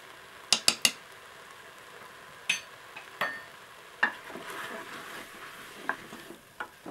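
Sharp taps on the Moulinex Cookeo multicooker's bowl, three quick ones just after the start and two more a little later. From about four seconds in, a spatula stirs and scrapes sliced sausages and onions frying in the bowl, with a light sizzle.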